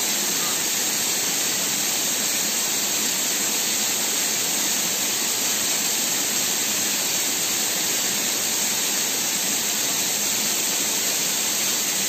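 Steady rush of a waterfall: an even, unbroken hiss of falling water.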